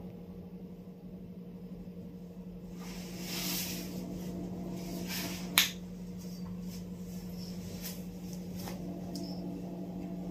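Quiet room tone with a steady low hum, a brief hiss about three seconds in, and a single sharp click about five and a half seconds in, followed by a few fainter clicks.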